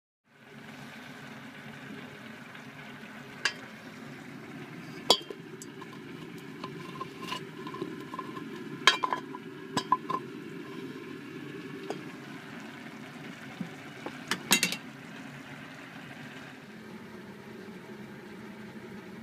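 Metal pot and utensils being handled in a kitchen, giving scattered sharp clinks, several close together about nine seconds in and again near fourteen seconds, over a steady low hum.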